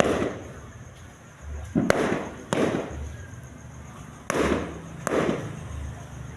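Fireworks bursting: about five sharp bangs, roughly a second apart, each trailing off in a fading echo.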